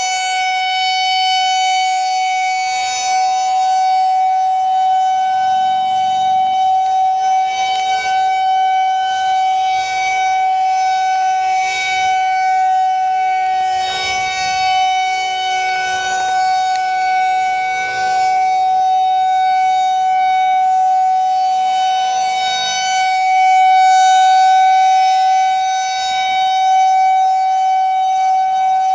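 Federal Signal 2001-130 outdoor warning siren sounding a steady tone at full pitch during a test, heard from close beneath it. The pitch holds level throughout, and the loudness swells and eases slightly.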